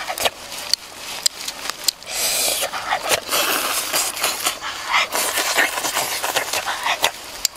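Someone eating grilled chicken wing and shredded green papaya salad up close: chewing and lip smacking in bursts, with many short wet mouth clicks.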